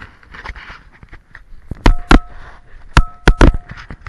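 Sharp, loud knocks close to the microphone: two about two seconds in, then three more a second later. Some are followed by a brief two-note metallic ring.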